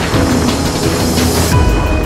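Background music with a steady beat. A swell of hiss cuts off about one and a half seconds in, as a deep tone drops.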